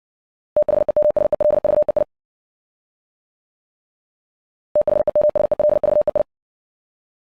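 Morse code (CW) sent at 60 words per minute as a single mid-pitched tone keyed very rapidly into dits and dahs. It comes in two bursts of about a second and a half each: one about half a second in, and one about four and three-quarter seconds in.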